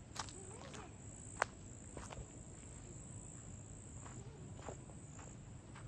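Steady high-pitched insect chorus, typical of crickets, with scattered light clicks and one sharp click about a second and a half in.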